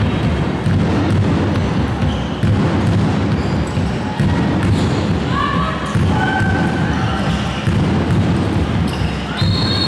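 Indoor handball game: the ball bouncing on the hall floor, shoes squeaking as players cut and turn, and voices calling out in the echoing hall. Near the end a referee's whistle starts, a steady high blast.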